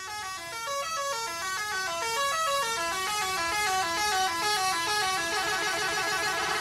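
Layered horn-like tones stepping up and down in pitch in short notes, several sequences overlapping. They start fairly quietly and grow louder and busier.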